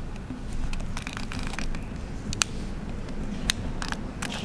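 Subway platform ambience: a steady low rumble with a few scattered sharp clicks and taps.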